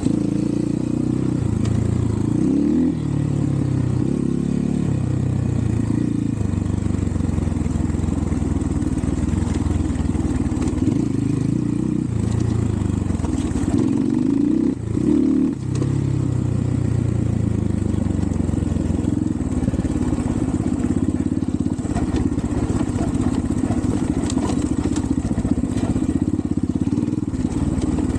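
Xpro Templar X 250cc dirt bike's single-cylinder engine running under load, its pitch rising and falling repeatedly with the throttle, with a brief drop about halfway through.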